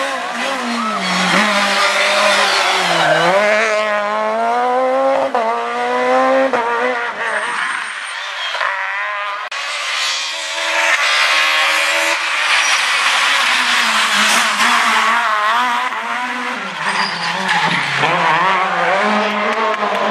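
Rally car engine at high revs, its pitch climbing and dropping back through several quick gear changes in the first seven seconds. It eases off briefly about eight seconds in, then revs hard again.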